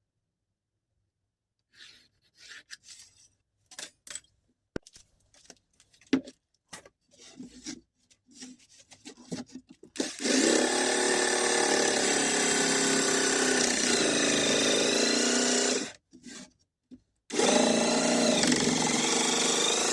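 Scattered knocks and rubbing from handling work pieces, then an electric power tool's motor running with a steady whine. Its pitch dips briefly partway through, as if under load. It stops, then starts again about a second later.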